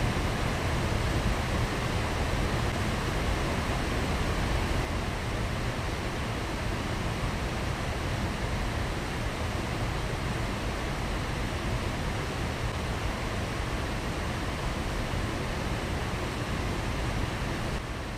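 Waterfall rushing: a steady, even wash of falling water with no pitch, a little quieter after about five seconds.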